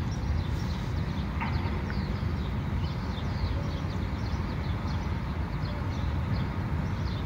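Outdoor ambience: a steady low rumble with small birds chirping faintly and repeatedly over it.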